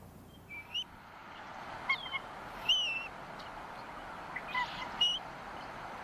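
Bald eagles calling: a scatter of about seven short, high-pitched chirping calls, several rising at the end, the loudest a little under halfway through, over a faint steady hiss.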